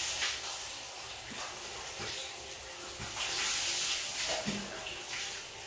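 A pot of shellfish soup at a rolling boil on a gas stove: a steady bubbling hiss, a little louder for a second or so partway through.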